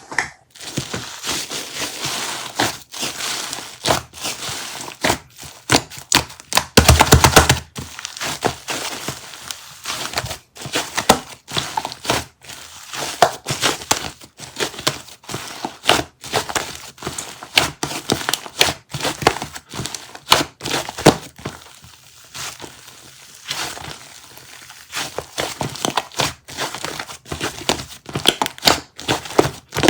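Dense crinkling and crackling with many sharp clicks, as of material being handled and worked up close, with a louder, denser stretch about seven seconds in.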